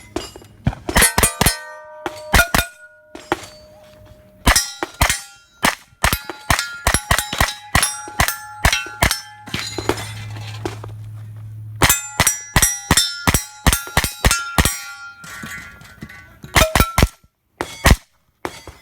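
Rapid shots from a 9mm pistol-caliber carbine at steel targets, most answered by the ringing clang of a hit plate, in quick strings with a couple of short pauses between target arrays.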